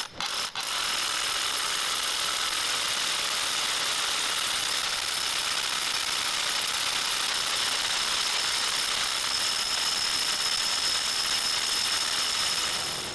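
Makita XGT 40V cordless SDS-plus rotary hammer hammering steadily under load for about twelve seconds after a few short knocks at the start, then stopping abruptly.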